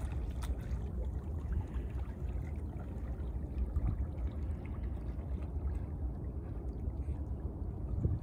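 Water lapping and splashing at a rocky shoreline over a steady low rumble of wind on the microphone.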